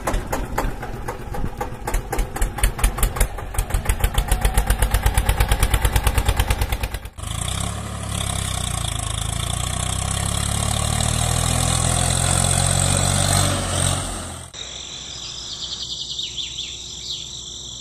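Tractor engine running: a rapid, even chugging for about the first seven seconds, then a steadier running with a hiss, and fainter chugging over the last few seconds.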